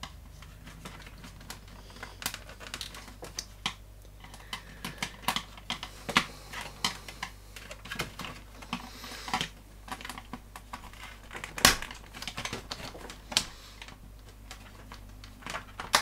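Irregular clicks and taps of a screwdriver working at plastic clips and sheet-metal parts of a vintage radio amplifier's chassis, prying a panel loose; the sharpest click comes about three quarters of the way through.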